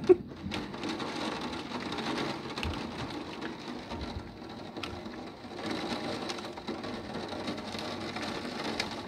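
Heavy thunderstorm rain pouring steadily, with a few brief sharp taps.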